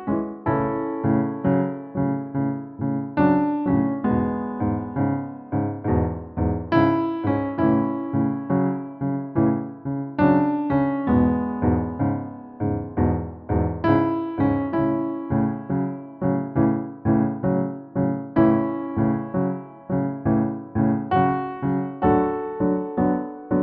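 Piano music: a steady run of struck notes and chords at a moderate pace.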